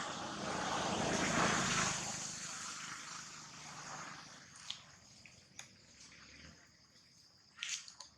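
A passing engine: its noise swells over the first two seconds and then fades away over several seconds, followed by a few short clicks near the end.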